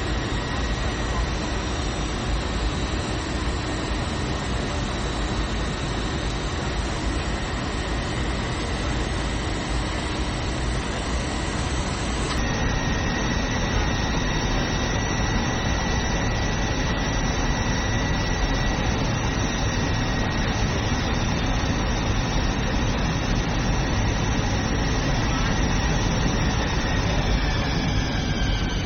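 Steady roar inside an airliner cabin on final approach, with the jet engines' whine heard as steady high tones. Near the end the engine whine drops in pitch.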